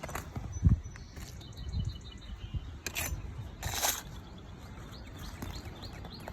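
A dull thump a little under a second in, then two short scrapes around three and four seconds, from hand work removing roof shingles; faint bird chirps in the background.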